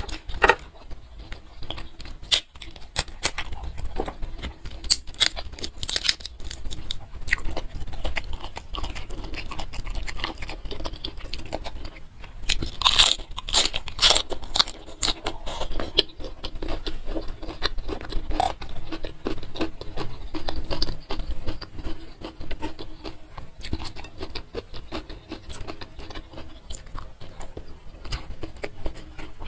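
Close-miked eating: chewing with repeated crisp crunches and small clicks. A run of loud crunchy bites comes about halfway through.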